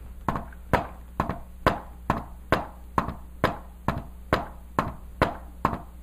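A hand tapping on a whiteboard in a steady run of knocks, about two a second, beating out the rhythm of an S4 heart sound (the fourth heart sound just before S1).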